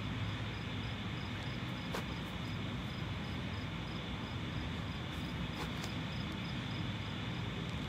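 Outdoor ambience: a steady low rumble with an insect chirping in an even, high-pitched pulse, and a few faint clicks.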